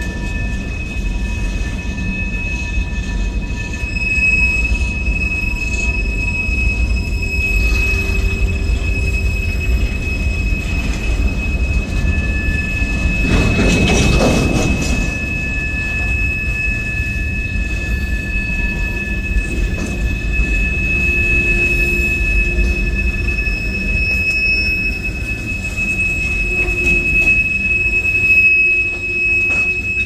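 Freight cars rolling past with a steady low rumble of steel wheels on rail and a thin, steady high-pitched wheel squeal. A brief louder rushing surge comes about halfway through.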